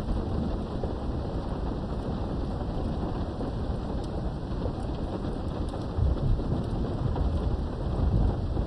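Steady rain heard through a window, with low rolling thunder that swells about six seconds in and again near the end.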